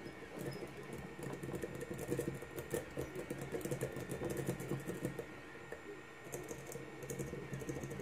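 Bogota rake worked rapidly in and out of the keyway of a brass Lockwood V7 padlock, the standard pin tumblers rattling in quick, irregular clicks. The clicking is densest in the first five seconds and then thins out.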